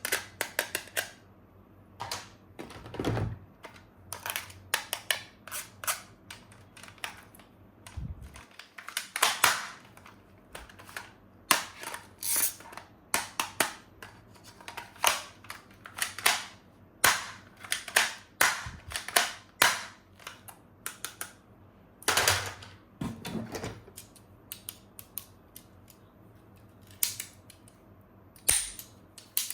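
Irregular sharp clicks and knocks of plastic toy gun parts being handled, with an occasional duller thump.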